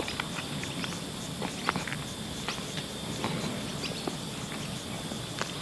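Close-up chewing of a crispy chicken schnitzel burger with coleslaw: scattered soft crunches and mouth clicks. Insects chirr steadily in the background.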